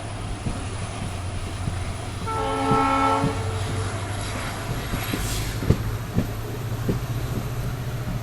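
WDP4D locomotive's EMD two-stroke diesel engine running with a steady low drone, and one multi-tone horn blast of about a second a little over two seconds in. In the second half come a few clacks of wheels over rail joints.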